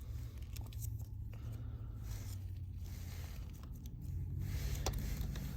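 Handling noise from work on a phone's back glass: rustling and scraping with a few sharp small clicks, over a steady low hum.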